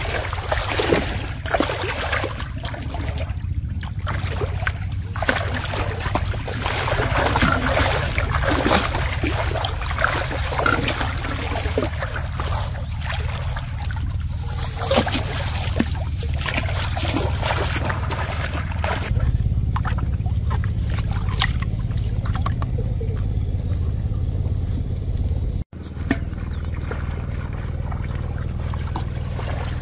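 Shallow water splashing and trickling as a metal pot is dipped and handled in it, with many small irregular splashes. A steady low rumble runs underneath, and the splashes thin out in the last third.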